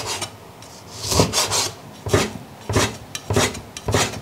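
Chinese cleaver cutting raw pork fat into small pieces on a cutting board. The blade draws through the fat and meets the board in about six separate strokes, roughly one every two-thirds of a second.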